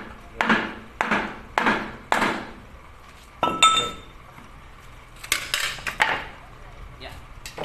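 Hammer blows on a wooden block held against a diesel engine block: four evenly spaced strikes about half a second apart, then a ringing metal clink, followed by a few more knocks and clatters.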